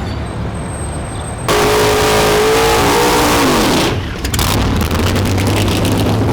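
Drag race car's engine: quieter for the first second and a half, then loud at full throttle for about two seconds with its pitch falling away, then a lower, steady engine drone.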